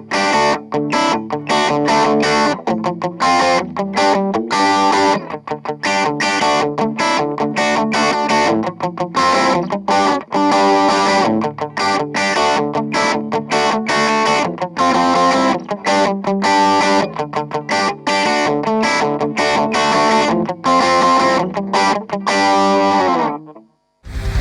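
Electric guitar played through a Cort MX15 practice combo amplifier with an overdriven tone: a fast, continuous run of short picked notes and riffs that breaks off shortly before the end.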